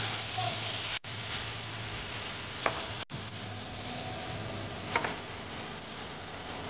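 Chicken pieces with onion and green capsicum sizzling in a non-stick frying pan as a spatula stirs them, a steady hiss with two light knocks of the spatula on the pan. The sound drops out briefly twice.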